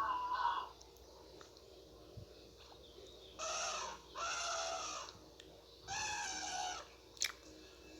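An animal giving three harsh calls in quick succession, each under a second long, then a brief sharp chirp near the end.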